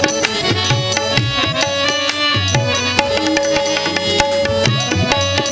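Instrumental interlude of Indian devotional music: a harmonium holds and moves between notes over a busy drum rhythm, with low drum strokes that bend in pitch.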